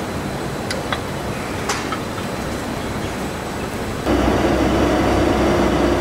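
Steady mechanical hum and noise with a few short chirps in the first two seconds; about four seconds in, a louder steady machine drone starts abruptly.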